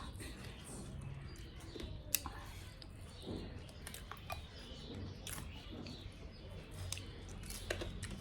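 Close-miked eating: chewing with wet mouth noises and small clicks, and one sharper click about two seconds in.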